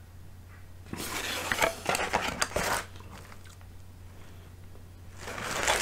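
Rustling and scraping of a coiled plastic extension cord being handled and lifted out of its cardboard box, with a few light clicks, for about two seconds, then quieter, with more rustling near the end.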